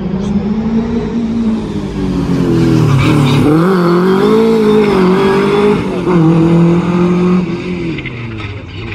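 Rally car engine revving hard through a bend, its pitch dipping and climbing several times, then fading as the car drives away.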